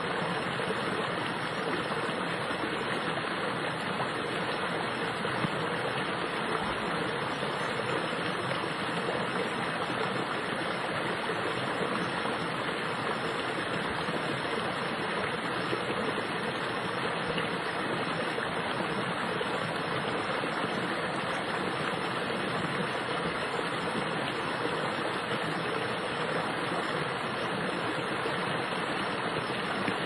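Fast-moving brook rushing over rocks: a steady, even wash of running water.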